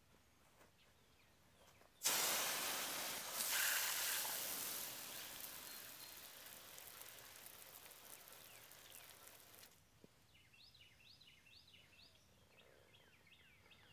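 Garden hose spray nozzle rinsing an alloy wheel and tyre: a hiss of water spray that starts suddenly about two seconds in, is loudest at first, fades gradually and stops near ten seconds. Birds chirp after the spray stops.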